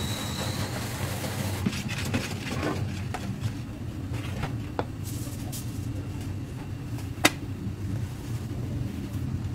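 Wire whisk mixing batter in a stainless steel bowl, with scattered clicks and taps of metal on metal and one sharp click about seven seconds in, over a steady low hum.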